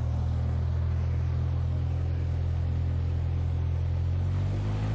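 Single-engine light aircraft's piston engine and propeller running steadily at low power while taxiing, heard inside the cabin as a deep, even drone; its note shifts slightly near the end.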